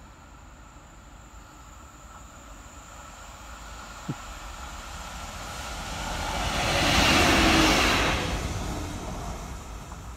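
Class 66 diesel-electric locomotive, with its EMD two-stroke V12, running light and passing at speed. The engine and wheel noise builds as it approaches, peaks as it goes by about seven seconds in, then fades. A brief rising chirp sounds about four seconds in.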